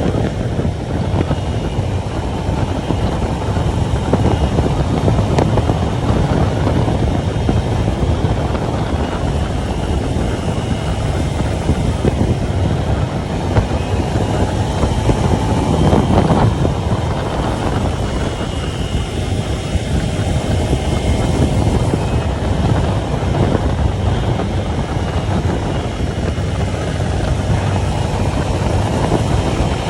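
Vehicle engine running on the move, with a steady low rumble that swells and eases slightly.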